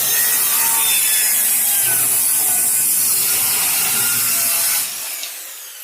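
Power saw cutting through a wooden board for about five seconds, then the blade spinning down with a falling whine.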